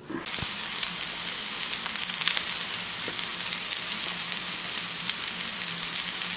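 Skillet hash of diced Spam, fingerling potatoes, peppers and onions with an egg frying in it, giving a steady sizzle with many small crackling pops. A faint low hum runs underneath.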